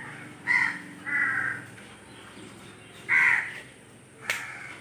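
Crow cawing: three short, harsh caws about half a second, one second and three seconds in. A single sharp knock sounds near the end.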